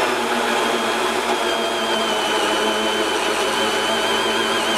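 Electric drill running a hole saw into the face of a door to bore the doorknob hole, a steady motor whine under load.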